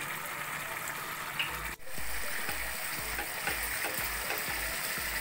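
Thick spice-and-tomato masala gravy sizzling and bubbling in a wok as it fries down, with a spatula stirring through it. There is a brief drop-out a little under two seconds in.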